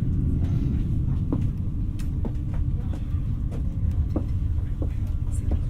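Interior running noise of an X60 (Alstom Coradia Nordic) electric commuter train at speed: a steady low rumble with a faint steady hum and a few light clicks.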